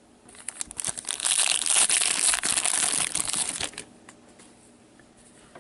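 Plastic wrapper of a hockey card pack being torn open and crinkled, a dense crackling that starts just after the beginning and stops about four seconds in.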